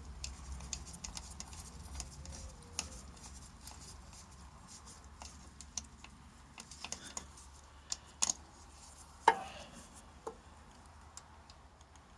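Small metal clicks and taps of bolts and parts being fitted by hand on a motorcycle, scattered irregularly, with one sharp metallic clank that rings briefly about nine seconds in.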